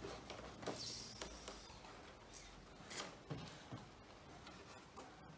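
Faint handling noises of small-parts work on a model plane's flying wires: a few scattered light clicks and a brief rub of hands, cable and small hardware.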